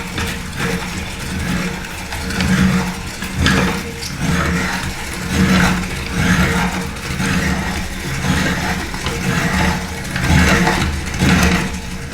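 Electric meat grinder motor running steadily with food being fed through, with irregular crunching and crackling surges about once a second as the auger breaks it up.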